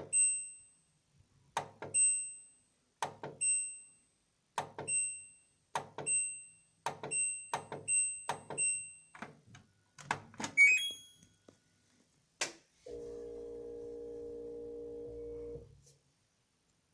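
LG front-loading washing machine's control panel: about ten button presses, each a click followed by a short high beep, coming faster toward the middle. Then a short rising chime, another click, and a steady electric hum for about three seconds as the machine starts up.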